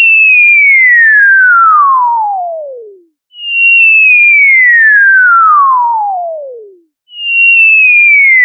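Cartoon falling sound effect: a whistling tone that glides down from high to low over about three and a half seconds, then starts again from the top. Two full falls, with a third beginning near the end.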